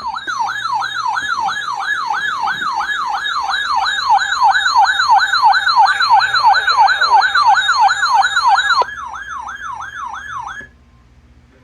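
Electronic emergency-alert siren wailing rapidly up and down, about three sweeps a second, sounding the alert ahead of a severe thunderstorm watch broadcast. It drops in level about nine seconds in and cuts off a little before eleven seconds.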